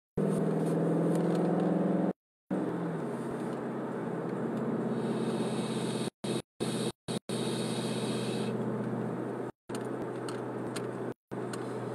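Car engine and road noise heard from inside the cabin, a steady hum that drops in pitch about three seconds in, with a hiss in the middle and several brief cut-outs of the sound.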